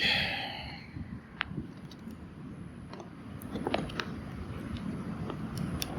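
A beeping tone fading out within the first second, then scattered light clicks and ticks over faint background noise.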